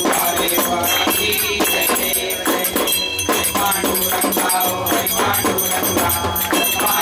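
A crowd singing a Hindu aarti together to a steady beat of hand-clapping, jingling percussion and a ringing hand bell.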